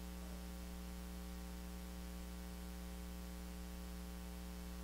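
Steady electrical mains hum with a faint hiss, holding at one level throughout.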